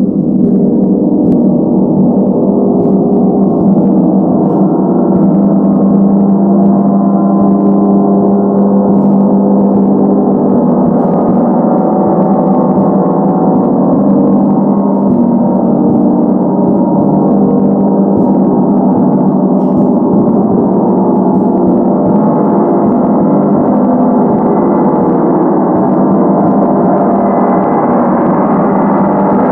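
A 100 cm Feng gong played continuously with soft mallets: a loud, dense sustain of many overlapping tones that holds at a steady level, strongest low down, kept going by repeated light strokes.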